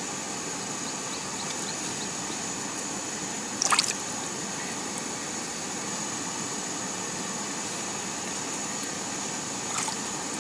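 A steady hiss, broken by a short splash about four seconds in and a smaller one near the end as a hooked roach is pulled up out of the ice-fishing hole.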